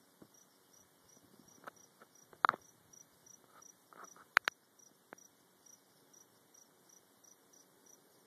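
An insect chirping steadily in short, high pulses, about two and a half a second. A few sharp clicks stand out about two and a half and four and a half seconds in.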